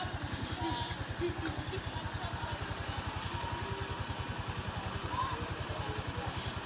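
An engine running steadily at idle off-camera, a fast, even low throb that does not change.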